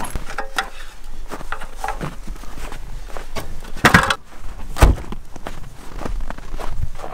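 Footsteps in snow and the handling of gear being loaded into a car boot, with many small knocks and two louder knocks about four and five seconds in as things go into the boot.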